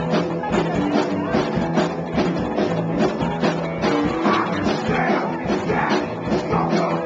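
Rock band playing live, with electric guitar and drums at a steady beat, heard through a small camcorder's built-in microphone.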